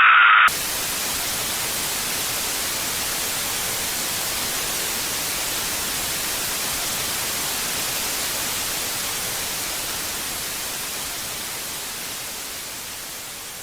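A loud shriek breaks off about half a second in and gives way to steady radio static hiss, which slowly fades out over the last few seconds.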